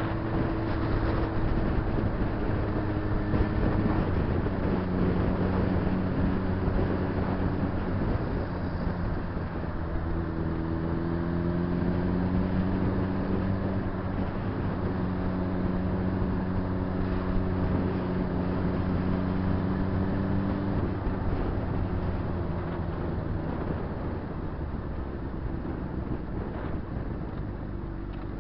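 Honda CBR600RR's inline-four engine running as the bike rides along. The engine note holds steady, steps in pitch several times, and falls away over the last few seconds as the bike slows.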